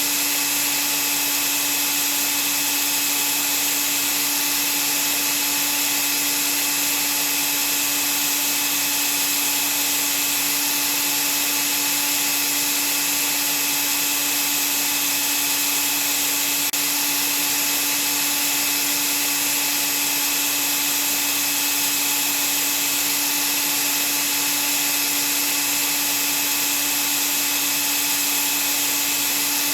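Vacuum cleaner motor running steadily, a continuous whooshing noise with a constant hum and a high whine.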